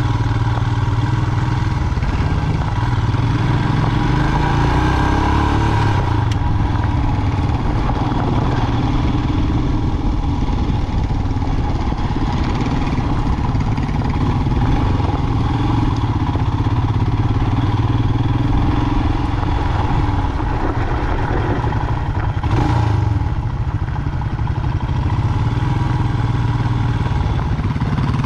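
Royal Enfield motorcycle's engine running at low road speed over gravel, its pitch rising and falling a few times as the throttle opens and closes, with wind and tyre-on-gravel noise.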